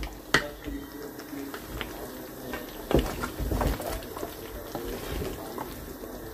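Wooden spatula stirring chicken pieces in a simmering sauce in an aluminium pan, scraping the metal and knocking sharply against it twice, with the sauce bubbling.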